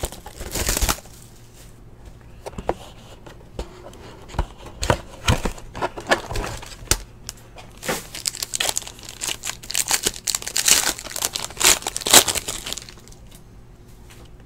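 Shiny plastic wrapper of a Panini Limited basketball card pack crinkling and tearing as it is worked open by hand, in irregular bursts. The crinkling stops about a second and a half before the end.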